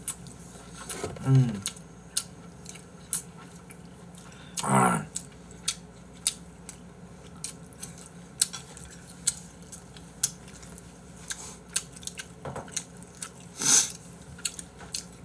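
Chopsticks clicking and scraping against bowls of noodles, with chewing and a few brief murmurs between the clicks.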